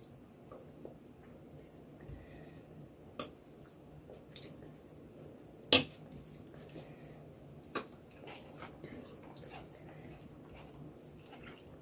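Sharp clinks of tableware, a spoon against a glass curry bowl and a plate, three of them, the loudest about halfway. Between them are soft wet squishing sounds of fingers mixing rice with egg curry.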